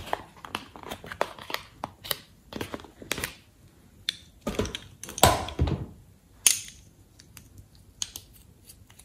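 Plastic eyeliner pens being pulled from a cardboard palette and handled: a run of quick clicks and taps, with a few louder scraping rustles in the middle.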